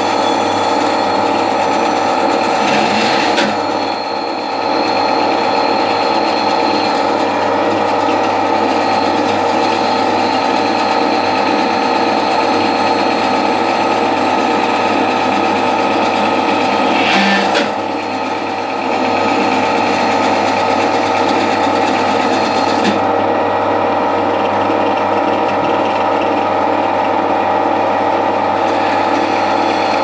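Bandsaw running steadily while its blade cuts through a block of timber being fed by hand. It gets briefly louder twice, about 3 and 17 seconds in, each time dipping for a moment just after.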